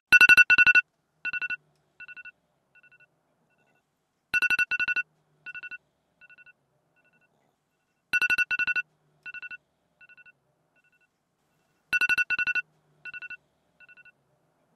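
Electronic alarm going off unanswered: each round is a pair of loud beeps followed by quieter repeats that fade away, and the round comes back about every four seconds.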